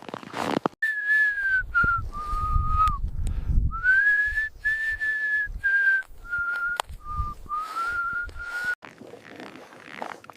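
A person whistling a slow tune: a single clear tone stepping between held notes, with short upward glides into some of them. Under the first part there is a low rumble.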